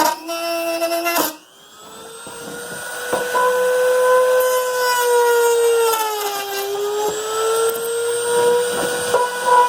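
Dremel rotary tool with a cutoff wheel cutting a widebody side skirt to length, a high steady whine. It cuts out about a second in, spins back up over the next two seconds, and its pitch dips briefly around six seconds in.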